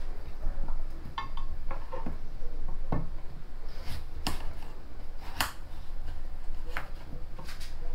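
Kitchen knife cutting vegetables on a cutting board: about ten sharp knocks at irregular intervals, over a low steady hum.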